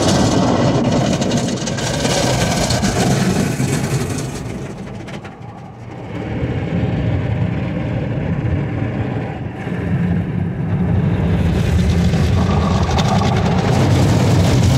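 Automatic tunnel car wash heard from inside the car's cabin: foam spraying onto the glass and soft-cloth wash strips sweeping over the body, a loud steady rumbling wash. Around the middle it dips and turns duller while the cloth strips cover the windshield, then comes back to full noise.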